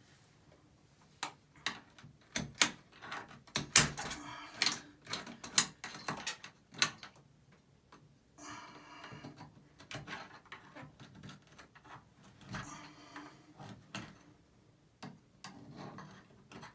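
Tools working at a tub and shower valve stem: a run of sharp, irregular metallic clicks and knocks, loudest about four seconds in, then softer scraping with scattered knocks in the second half.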